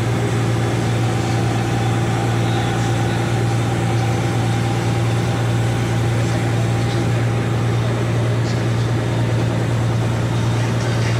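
Vehicle ferry's diesel engine running steadily while under way, an even low drone.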